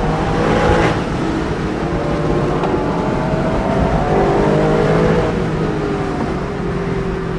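Porsche 911 Carrera 4S flat-six engine heard from inside the cabin, with steady road noise underneath. The revs climb, break off with a gear change about a second in, then climb again and ease off over the last couple of seconds.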